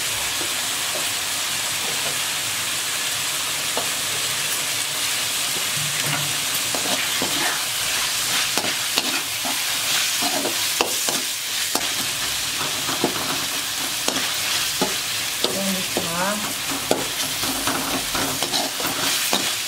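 Chopped onion, tomato and ginger-garlic sautéing in oil in a kadai, sizzling steadily, while a perforated steel ladle stirs them and scrapes against the pan. The scraping and knocking of the ladle grows more frequent from about eight seconds in.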